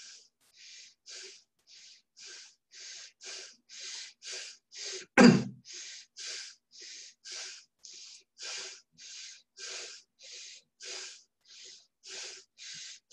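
A person breathing quickly and rhythmically, with short hissing breaths about two a second, as a channeler entering a trance state before speaking. About five seconds in comes one much louder, sharp burst.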